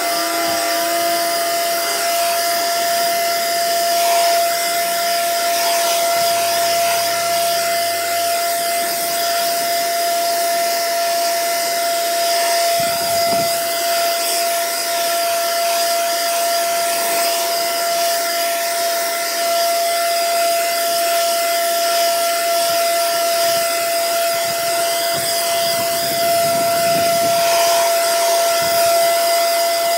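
Small two-stroke engine of a handheld lawn tool running steadily at high throttle, a constant whine that holds one pitch over a rush of noise.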